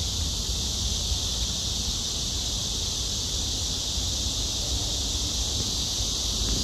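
A steady, high-pitched insect chorus that buzzes on without a break, with a low rumble underneath.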